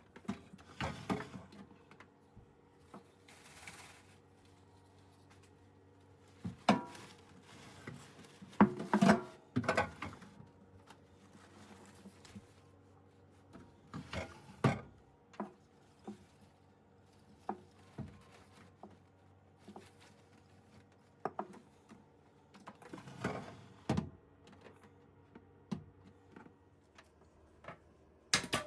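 Irregular knocks, taps and short clatters of household objects being handled and set down, with quiet gaps between; the loudest run comes about eight to ten seconds in.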